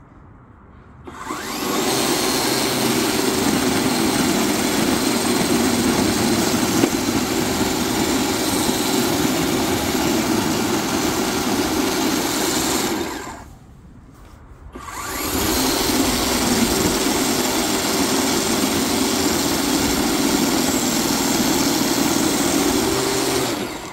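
Ryobi 40V brushless cordless snow shovel running and throwing snow, its motor and auger whirring steadily. It spins up about a second in, winds down a little past halfway, then starts again and runs until just before the end.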